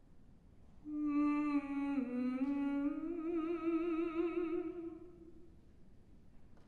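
Unaccompanied mezzo-soprano voice humming one long note: it dips in pitch about a second after it starts, then rises, takes on a vibrato and fades out.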